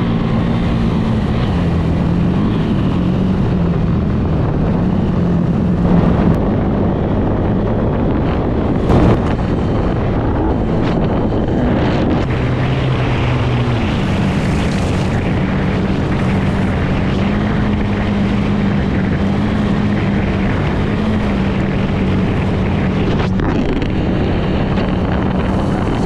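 KTM 390's single-cylinder engine running at fairly steady revs while the motorcycle is ridden, under heavy wind noise on the microphone. There are two brief knocks about six and nine seconds in, and about halfway the engine note shifts and then holds steady.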